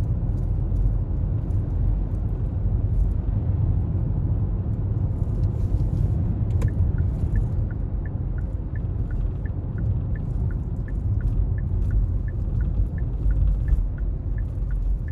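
Steady low road rumble from inside a moving car. About halfway through, the turn-signal indicator starts ticking evenly, about three ticks a second in an alternating tick-tock.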